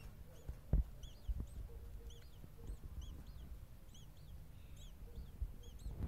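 Starlings cheeping in a nest behind a roof membrane: many short, thin, arched chirps, several a second. A few dull knocks, the loudest about a second in.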